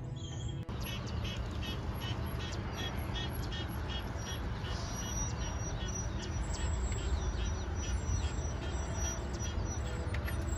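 Open-air ambience: a steady low rumble with many short bird calls repeating over it, beginning after a cut under a second in.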